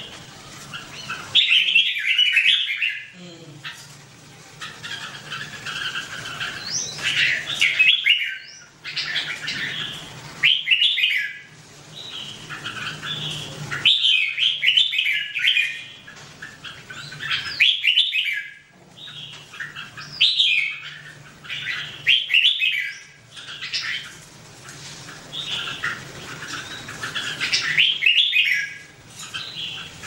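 Red-whiskered bulbuls singing: loud bursts of quick, bubbling notes every two to four seconds, with softer chattering calls in between.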